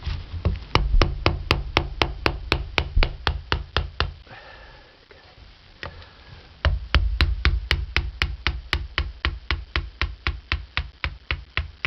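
Rapid, even tapping, about four sharp taps a second, knocking a rusted trim clip along the channel of a VW Beetle running board's aluminium trim to work it out. The tapping stops for a couple of seconds about four seconds in, then starts again at the same rate.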